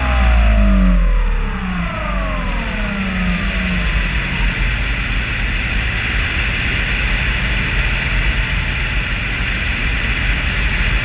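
RC flying wing's propeller motor, heard from the onboard camera: its whine falls in pitch over the first few seconds as it throttles down, giving way to a steady rushing noise of airflow over the airframe.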